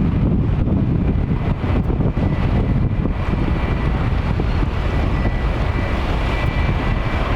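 Airbus A330-900neo airliner's Rolls-Royce Trent 7000 jet engines rumbling steadily as it comes in to land, with wind buffeting the microphone. A faint high whine joins in near the end.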